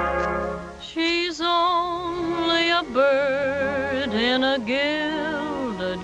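A dance band's held brass chord dies away, then a woman sings a slow ballad in a wavering vibrato over soft band accompaniment, the first phrase coming in about a second in.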